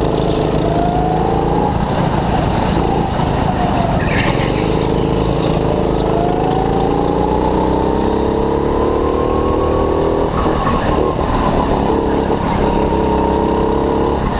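Go-kart engine heard from on board at racing speed, its pitch climbing as the kart accelerates and dropping as it slows for corners, with a long climb that falls away about ten seconds in.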